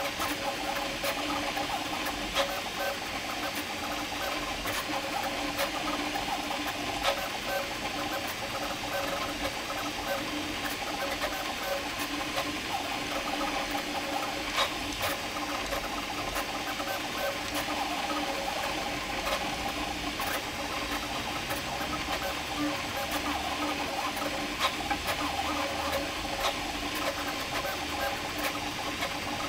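Prusa MK4 3D printer printing at speed on input-shaping firmware: its stepper motors whine in tones that keep shifting as the print head moves. Small ticks come through over a steady hiss.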